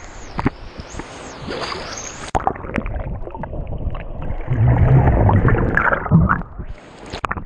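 Pool water sloshing and splashing around a waterproof action camera at the surface; about two and a half seconds in the camera goes under and the sound turns dull and muffled, with underwater rumbling and bubbling. The high hiss of the surface returns briefly near the end as it breaks the surface.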